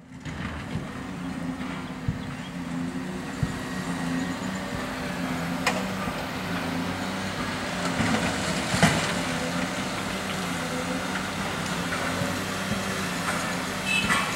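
Heavy diesel construction machinery running steadily, its engine note wavering slightly, with a few sharp clanks, the loudest about nine seconds in.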